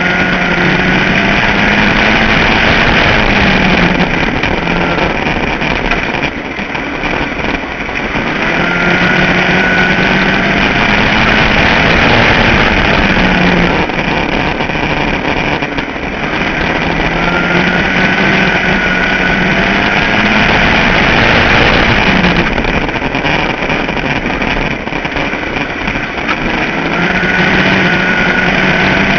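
A Ford Focus midget race car's four-cylinder engine running flat out: its pitch climbs and holds on each straight, then drops through each turn, about every nine seconds, over a steady rushing noise.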